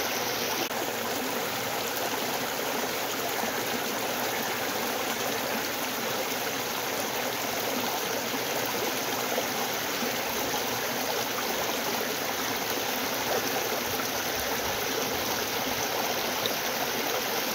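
River water rushing and babbling over stones in a steady, even flow.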